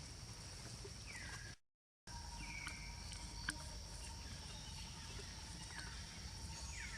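Quiet outdoor ambience: a steady high insect drone and hiss, with a few short chirps that fall in pitch. The sound cuts out completely for about half a second near the start.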